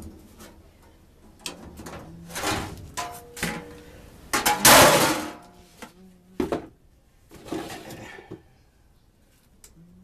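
Clunks, knocks and a harsh scrape as the furnace's metal parts are handled and taken off to reach the filter, the scrape the loudest about four and a half seconds in.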